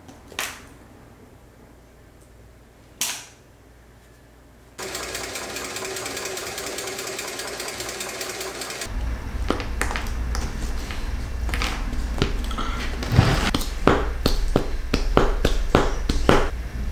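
Industrial sewing machine stitching a strap: uneven, rapid needle knocks over a low motor rumble in the second half, after its steady hum starts about five seconds in. Two sharp clicks come before it.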